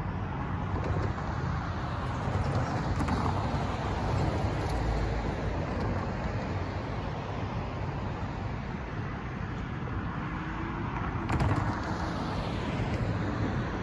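Road traffic: cars driving past one after another, a steady tyre and engine noise that swells a little as each one goes by.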